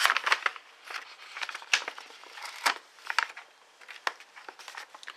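Brown paper envelope handled and unfolded by hand: irregular paper crinkling and rustling. There is a busy burst at the start, then scattered sharper crackles, growing quieter near the end.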